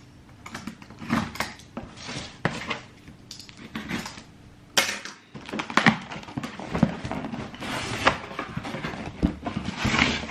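Packaging handled and opened by hand: irregular rustling and crinkling with small knocks and taps, and one sharp click about five seconds in.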